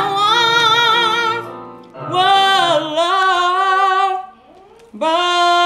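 A woman singing in a full voice, holding long notes with vibrato, in phrases broken by short pauses for breath.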